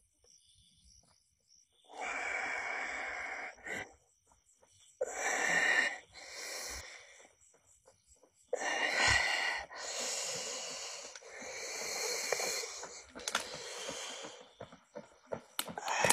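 A person breathing heavily and raspily close to the microphone: a series of long, wheezing breaths in and out, separated by short silences.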